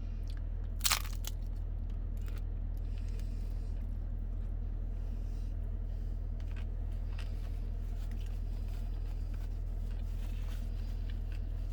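Steady low hum inside a car, with one sharp crunch about a second in and faint scattered clicks of someone eating.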